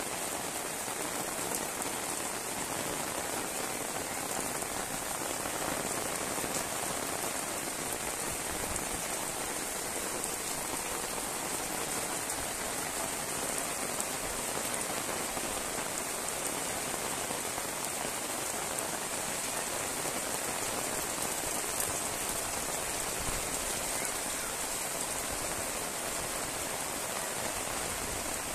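Heavy rain falling steadily on foliage and a paved lane: a dense, even hiss of drops that holds unchanged throughout.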